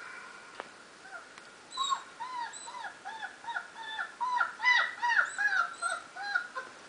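Very young German shepherd puppies whimpering and squealing, played back from a video: a quick run of high calls, about three a second, each rising and falling in pitch, starting about two seconds in and loudest around the middle.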